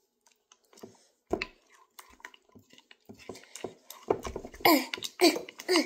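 Small plastic spoon stirring and scraping thick, tinted white glue in a bowl: scattered sticky clicks and squelches that get busier in the last two seconds, with a few short falling squeaks.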